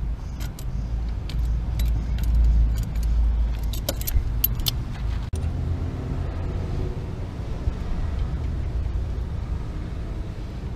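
Small metal tool clinks and jingles at a car's brake caliper, a run of sharp clicks in the first five seconds as the bleeder screw is worked with a wrench, over a steady low rumble.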